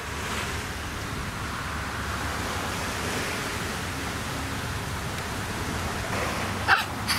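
Steady rushing noise with a flickering low rumble: wind on the microphone.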